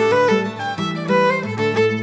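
Instrumental music led by a fiddle, playing a continuous melody over a steady low note.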